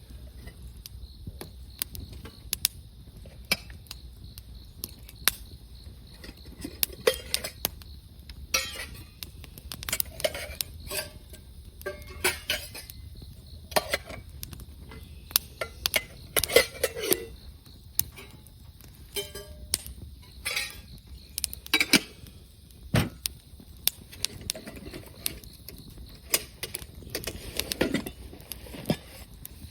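Wood fire crackling, with sharp pops and snaps coming at irregular intervals, some much louder than others. Insects trill steadily in the background.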